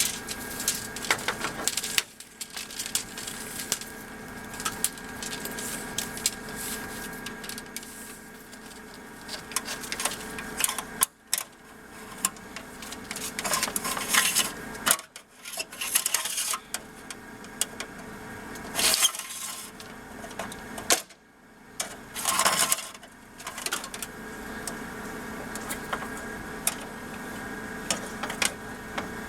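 Light clicks, clinks and knocks of hand work with small metal and plastic parts, in several short pieces that break off suddenly.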